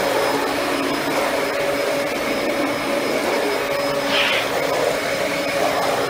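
Dyson DC14 Animal upright vacuum's 12-amp motor running steadily, a constant whine over the rush of air, as it cleans a tile floor with its brush roll switched off for bare floors.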